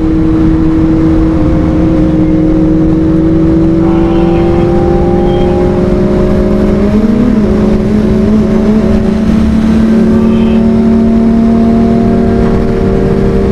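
A motorcycle engine running steadily while riding, its pitch climbing slowly as it gains speed, with a brief wavering in the middle, over heavy low wind rush.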